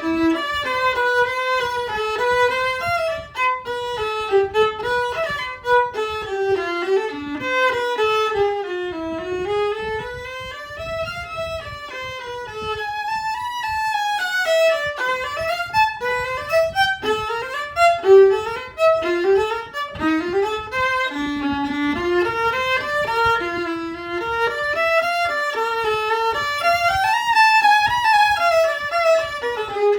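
An old Karl Hofner violin played solo with a bow: a continuous melodic passage of notes that run up and down in pitch.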